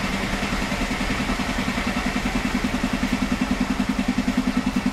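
Diesel engine of a narrow-gauge sugar-railway locomotive idling at the platform, a steady low throb whose pulsing grows stronger about halfway through.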